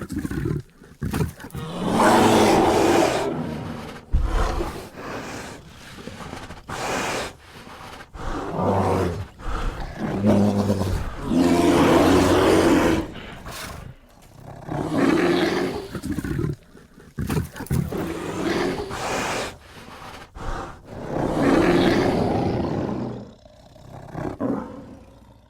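A bear's roars, one after another, each lasting one to three seconds with short pauses between.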